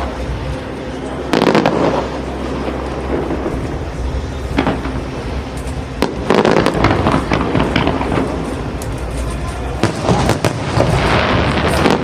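Aerial fireworks bursting: a string of loud bangs a few seconds apart, the heaviest about six seconds in and again near the end, with crackling between them.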